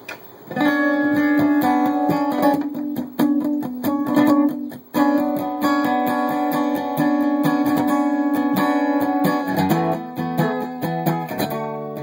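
Acoustic guitar being strummed in a steady rhythm, playing a song's instrumental intro. There is a short break just before five seconds in, and the chords move lower near ten seconds.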